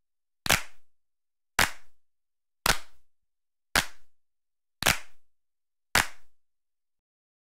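A sharp click, six times at even spacing a little over a second apart, each with a short fading tail.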